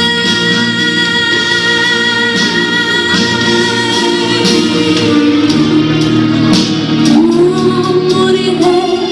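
A woman singing into a handheld microphone over instrumental accompaniment, holding a long wavering note for the first few seconds, then moving on into a changing melody.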